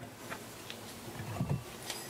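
Faint ticks and a soft knock of a porcelain lidded bowl being handled as its lid is lifted off, the knock about one and a half seconds in.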